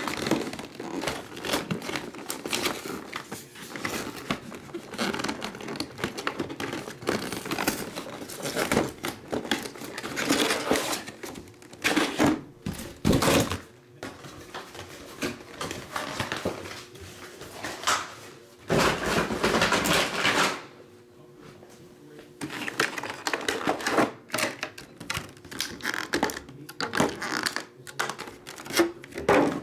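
Cardboard box and clear plastic blister packaging being handled and opened: many irregular clicks, knocks and rustles, with a loud two-second stretch of rustling a little past the middle.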